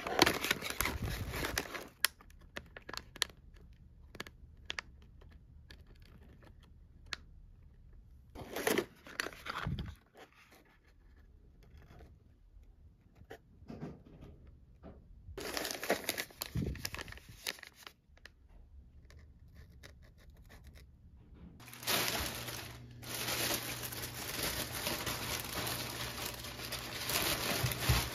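Plastic packaging and paper crinkling and rustling as items are handled, in three short bouts with small clicks between them. Near the end comes a longer stretch of continuous rustling from a clear plastic bag of leafy greens.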